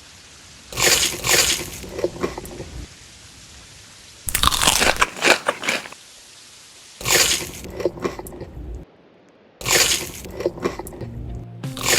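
Close-up crunching of someone biting and chewing crisp food, in four bouts separated by short pauses.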